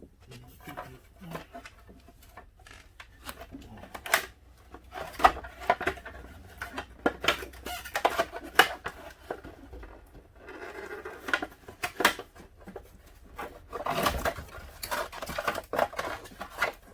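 Irregular clicks, knocks and rattles of hand tools, bolts and plastic fairing panels being handled as a sport bike's fairing is unbolted and taken off.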